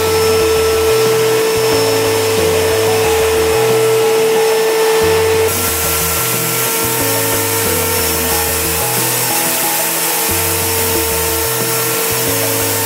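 Wet/dry vacuum cleaner's motor running steadily with a whining tone and rushing air, under background music. The sound changes abruptly about five and a half seconds in.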